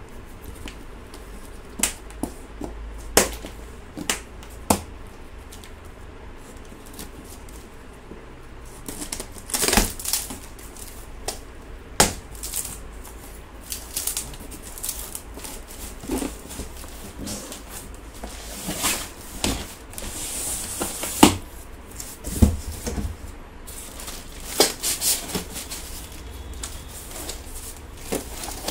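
A cardboard box and its polystyrene packing being unpacked by hand: plastic straps cut off, flaps pulled open and the foam block shifted. Irregular sharp clicks and knocks with rustling between them, and a longer scraping rustle about twenty seconds in.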